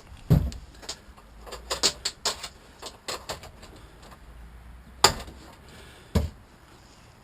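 Handling noises from parts being moved and set down: a heavy thump, a run of light clicks and rattles, then a sharp knock and another low thump near the end.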